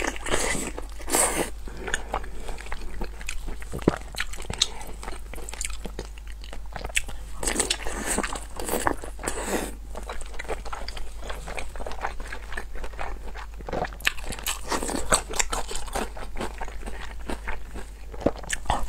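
Close-miked biting and chewing of oily braised pig intestines: a steady run of wet mouth clicks and smacks.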